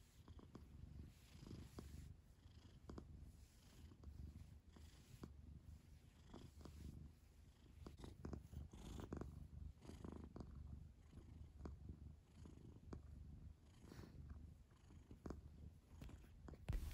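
Tortoiseshell cat purring faintly and steadily while being stroked, with soft rustles of the hand moving over its fur and the duvet.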